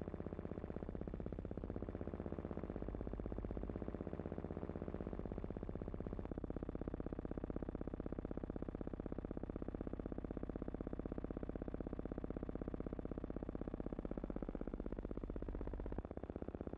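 Steady synthesizer-like background music drone with a fine, rapid pulsing texture. It shifts in tone about six seconds in and again near the end.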